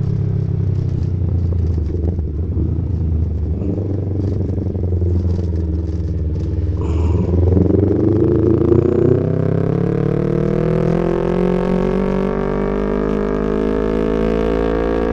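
Yamaha MT-25's parallel-twin engine running at low revs, then from about eight seconds in pulling up through the revs with its pitch climbing steadily as the bike accelerates.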